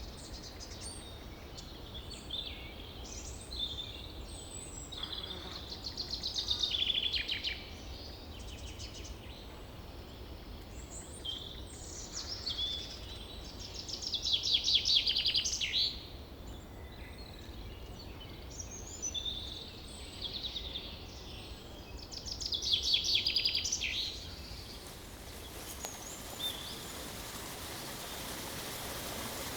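Several wild birds calling and singing. A rapid trilled song stands out three times, about eight seconds apart, over a steady low background rush. A brighter, even hiss of running water from a waterfall comes up near the end.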